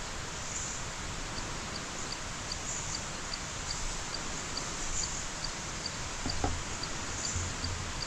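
Night forest insects calling over a steady hiss: a high tick repeats about two and a half times a second, and a higher short buzz comes about every two seconds. A soft thump of handling or a footstep about six seconds in.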